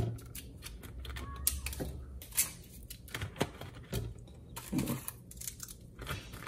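Small pieces of aluminum foil crinkling as fingers push them into the neck of an empty plastic 2-liter soda bottle, with irregular light clicks and plastic crackles.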